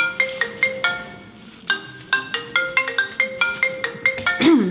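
Smartphone marimba ringtone playing a quick repeating phrase of bright notes, heard twice with a short pause between: an incoming video call. A brief voice sound near the end.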